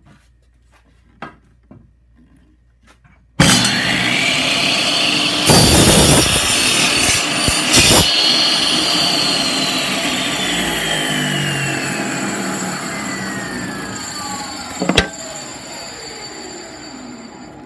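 Table saw switched on about three seconds in, its blade crosscutting a wooden board on a crosscut sled for a couple of seconds. After the cut, the saw winds down with a slowly falling whine, and there is a sharp knock near the end.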